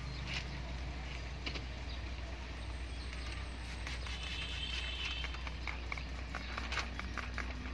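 Hand trigger spray bottle squirting water onto the window glass and tint film: a short hiss, then a quick run of trigger clicks and squirts, over a steady low hum.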